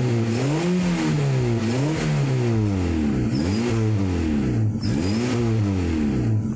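Daihatsu Taruna's four-cylinder petrol engine, heard at the tailpipe, being revved up and down in repeated throttle blips about once a second. It has just had a top overhaul and is running evenly, no longer misfiring now that a tight valve on cylinder 4 has been reset.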